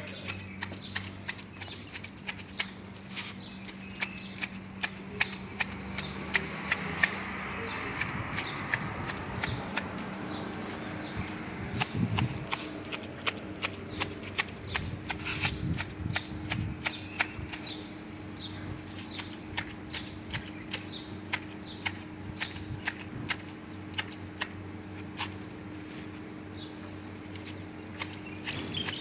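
Hand pruning shears snipping through small branches and twigs over and over, sharp irregular clicks roughly two to three a second.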